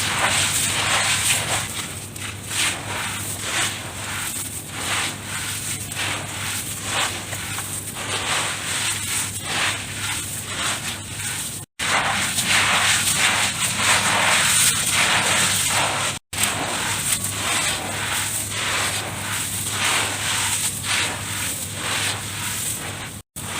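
Hands crumbling and mixing dirt: a dense, continuous run of small crackles and crunches. It is broken by three brief, abrupt drop-outs, one about halfway through and two later on.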